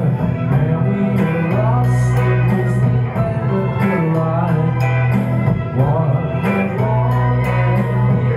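Man singing a song into a microphone while playing an amplified electric guitar, heard live through a club PA.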